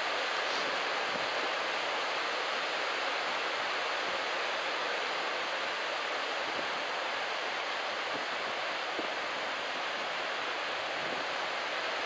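Surf breaking on the shore, an unbroken, even rush of water.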